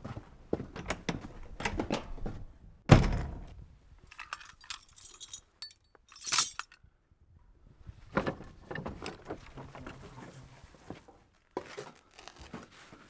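Footsteps, then a wooden shed door thudding open with one loud knock about three seconds in, a brief metallic jingle a few seconds later, and more footsteps.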